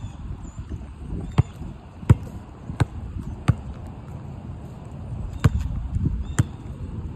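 A basketball bouncing on asphalt: four sharp bounces in a steady rhythm, then a pause and two more.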